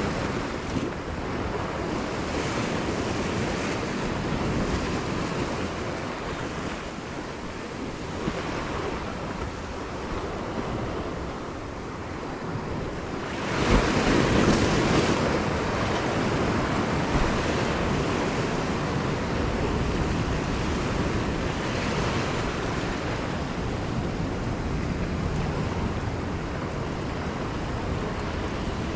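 Sea surf washing and breaking against a rocky shore, with wind buffeting the microphone. A bigger wave breaks about halfway through, the loudest moment.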